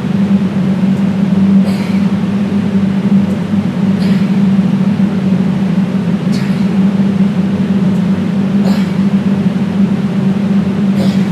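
Loud, steady low hum throughout, with a short breathy hiss about every two seconds, a sharp exhale on each exercise repetition.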